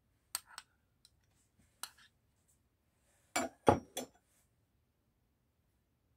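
Metal spoon clinking against a glass salad bowl while thick dressing is spooned onto the salad: a few light clinks in the first two seconds, then a louder cluster of three or four about three and a half seconds in.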